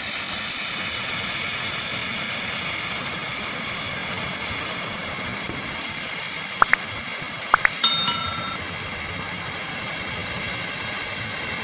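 Steady roar of rushing floodwater. About two-thirds of the way through, two sharp clicks and then a short ringing chime, the click-and-bell sound effect of a subscribe button animation.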